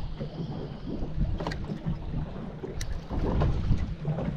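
Water lapping and slapping against a small boat's hull at sea, with wind buffeting the microphone and a couple of short light clicks.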